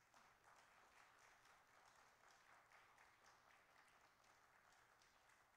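Faint applause from a small congregation clapping, tapering off near the end.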